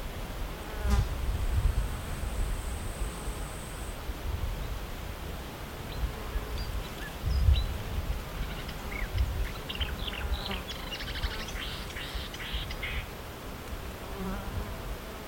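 A flying insect buzzing close to the microphone, swelling loudest about a second in and again around seven seconds. A songbird in the reeds gives a quick chattering run of short high notes from about ten to thirteen seconds.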